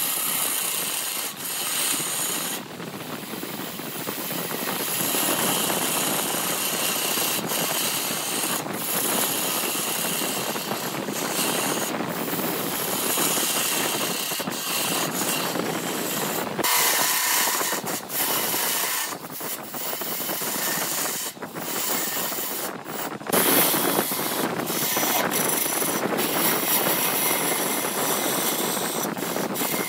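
A lathe tool cutting into a spinning blank of glued bamboo chopsticks and epoxy resin: a steady scraping hiss as shavings come off, broken by brief gaps when the tool eases off the wood.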